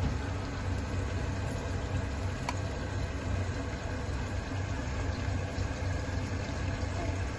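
A steady low mechanical hum under an even rushing noise, with a light tick about two and a half seconds in.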